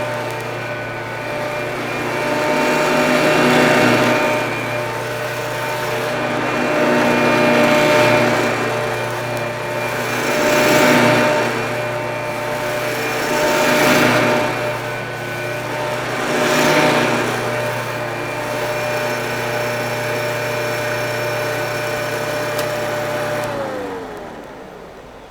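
A 1972 Montgomery Ward Signature upright vacuum cleaner, Eureka-built, running with a steady motor whine, swelling louder every three seconds or so. Near the end it is switched off and the motor winds down, its pitch falling.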